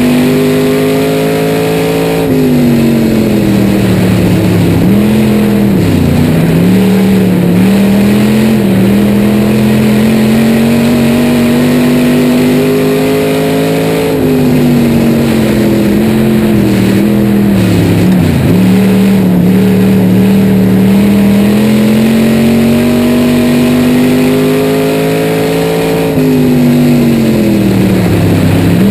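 Dirt-track race car's engine, heard from inside the car under hard running. Its pitch drops three times and climbs back each time, as the car slows for a turn and accelerates out.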